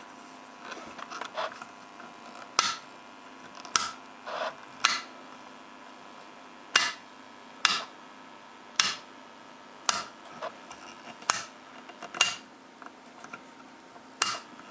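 Steady hum from the transformer of a MAXINTER PLUS-10AT battery charger running under charge. The hum comes from loose, unimpregnated windings and is harmless. About ten sharp clicks, unevenly spaced about a second apart, are louder than the hum.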